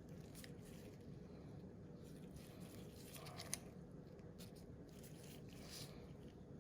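Near silence with faint handling sounds: a few soft scrapes and rustles, and one small click about three and a half seconds in.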